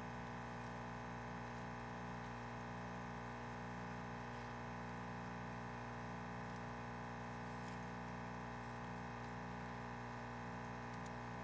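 Steady hum made of several fixed tones, unchanging throughout, with a few faint soft ticks now and then.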